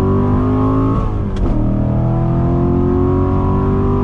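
2019 Chevrolet Corvette Grand Sport's 6.2-litre V8 under hard acceleration through the 7-speed manual: revs climb, drop sharply at a gear change about a second in, then climb steadily again.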